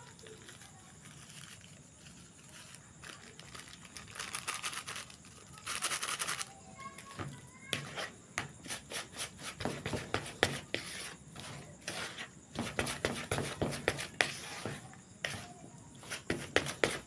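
Plastic spatula stirring and scraping a crumbly flour-based fish-bait mix in a plastic bowl: a run of irregular scrapes and knocks that starts a few seconds in and grows busier in the second half.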